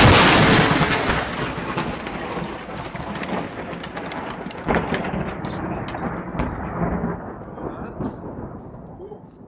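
Lightning strikes very close: a sudden, very loud thunderclap that comes at once with the flash, then a long rolling rumble with crackles that slowly fades over about nine seconds.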